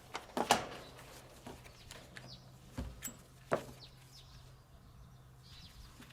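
A few sharp knocks and clicks, loudest about half a second in, over a faint steady hum that stops shortly before the end.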